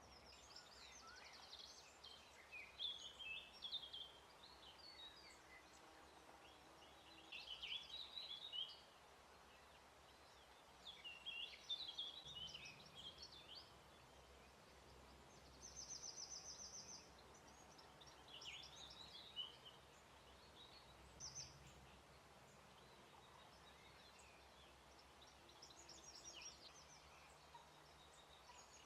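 Songbirds singing, faint: short scratchy song phrases every few seconds, and a fast high trill about halfway through and again near the end.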